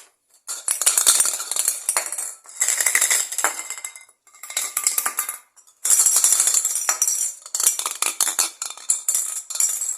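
Aerosol spray paint can being shaken hard, the mixing ball inside rattling rapidly against the metal, in several bursts with short pauses between them.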